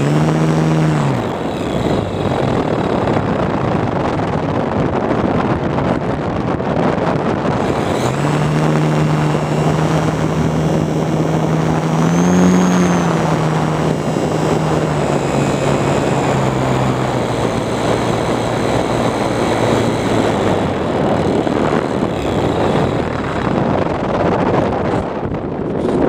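Airflow rushing past an RC plane's onboard camera, with the plane's motor and propeller humming in a steady tone. The hum fades out about a second in, returns about eight seconds in, rises briefly in pitch around twelve seconds as the throttle opens, and fades out again around seventeen seconds.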